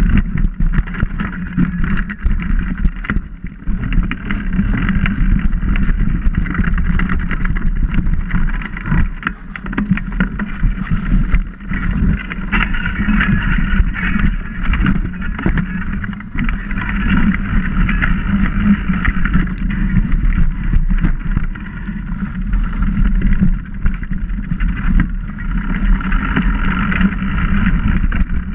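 Mountain bike riding down a dirt forest trail: steady tyre rumble with constant rattling and knocks as the bike jolts over the bumpy ground.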